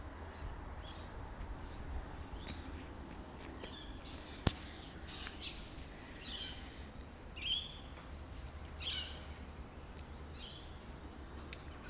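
Birds calling: a series of short, high chirps with falling notes, mostly in the second half. Over a low steady rumble, with one sharp click about a third of the way in.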